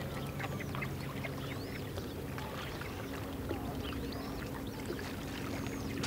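Wild birds calling around a pool: many short chirps and whistling glides, some rising and some falling, scattered throughout over a steady low hum.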